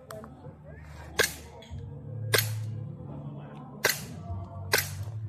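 Airsoft pistol firing four single shots, spaced about one to one and a half seconds apart.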